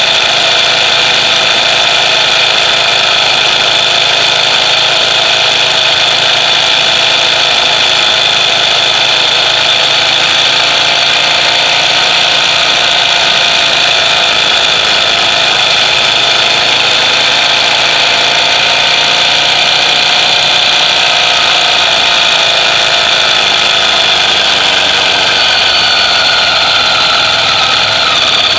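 Ducati Monster EVO's 90° L-twin engine idling steadily through its stock exhaust, with a steady high whine over the engine note.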